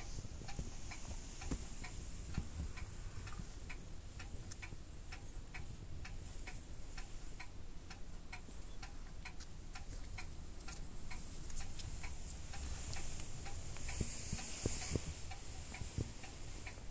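A steady, light ticking, about three ticks a second, over a faint high hiss.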